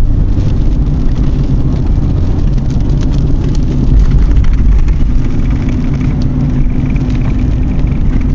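Steady low rumble of road and engine noise inside a moving car's cabin. A faint high whine joins about six seconds in.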